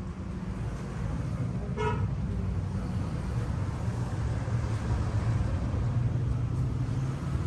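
Street traffic: a steady low vehicle engine rumble that swells a little after the first second, with one short horn toot about two seconds in.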